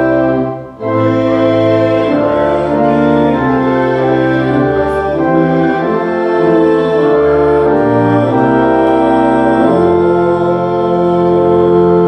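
Organ playing a slow run of sustained chords, with a brief break about a second in, ending on a long held chord near the end.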